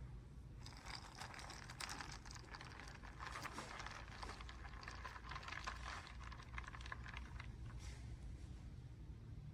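A run of quick, light clicks and taps lasting several seconds over a steady low hum.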